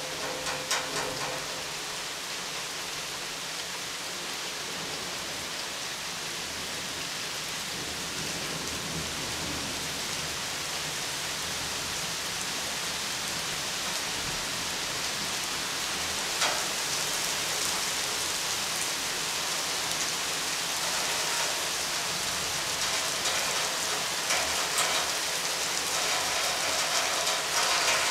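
Steady rain falling, slowly growing louder, with a sharp tick about halfway through and scattered ticks of drops near the end.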